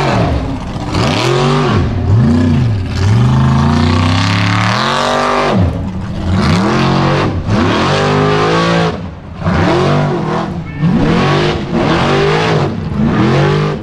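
Formula Offroad hill-climb buggy's engine revving hard again and again, its pitch rising and falling about once or twice a second as the driver works the throttle up a steep sand slope. Spraying sand and dirt from the spinning paddle tyres adds a steady hiss.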